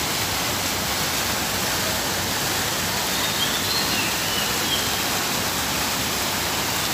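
Fountain jets in an ornamental pool splashing: a steady rush of falling water.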